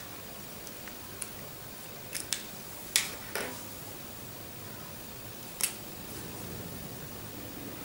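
Handful of short sharp clicks and taps from coloured pens being put down and picked up on a tabletop, about six of them, the loudest about three seconds in.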